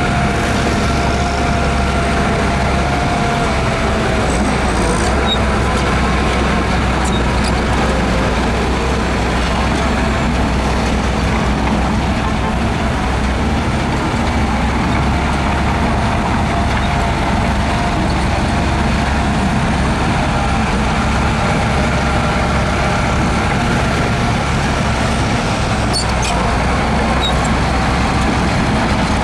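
Heavy diesel earthmoving machinery running steadily under load, with a faint wavering whine over the engine and a few light clanks.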